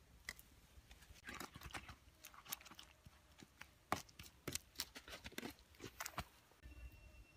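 Wooden pestle crushing red chillies into a wet paste in a coconut-shell bowl: irregular crunching, squelching knocks, the loudest about four seconds in. The pounding stops near the end.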